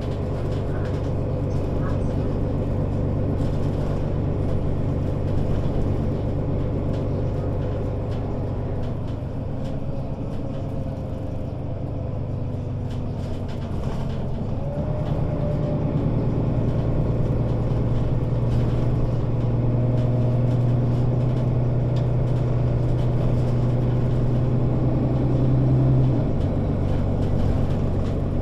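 Mercedes-Benz O 530 Citaro Facelift city bus engine heard from inside the passenger saloon while driving: a steady low drone that grows louder about halfway through, holds, and drops back a couple of seconds before the end.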